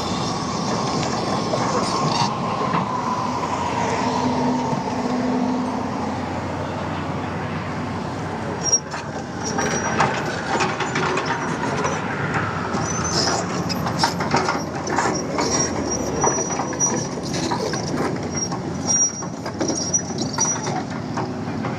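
Heavy machinery at work, most likely the Hyundai excavator. It runs loudly with a whine that falls slowly over the first few seconds. From about halfway through come repeated metal clanks and knocks, and near the end a thin, high metallic squeal.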